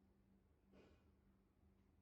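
Near silence: a faint steady low hum, with one brief faint noise a little under a second in.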